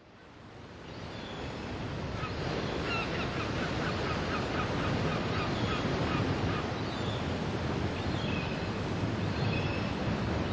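Ocean surf washing steadily, fading in over the first couple of seconds, with birds calling in quick runs of short notes in the first half and a few more calls later on.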